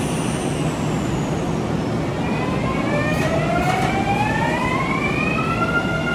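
Electric commuter train pulling away, its inverter-driven traction motors whining in several tones that climb together in pitch from about two seconds in and level off near the end, over a steady low rumble.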